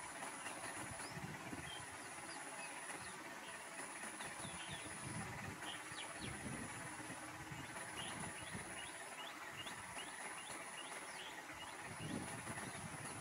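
Outdoor ambience of many short bird chirps over a low background noise. A thin, high steady whine comes in stretches of about a second and a half, with short breaks between them.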